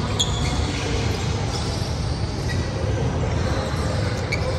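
Steady low rumble of a large indoor gym hall, with a couple of faint, brief high squeaks.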